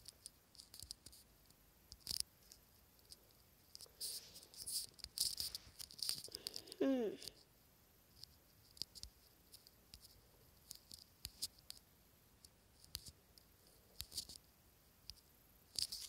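Fingertip taps and clicks on a phone, scattered and faint, bunching together between about four and seven seconds in. About seven seconds in there is a short sound that falls in pitch.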